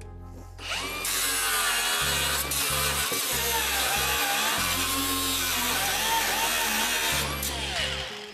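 Corded angle grinder grinding steel inside a car shell, its pitch dipping and recovering as it bites into the metal. It starts about half a second in and cuts off about a second before the end.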